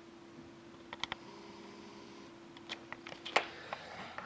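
A few light, scattered clicks: a pair about a second in and a quicker cluster around three seconds in, over a faint steady hum that stops shortly before the end.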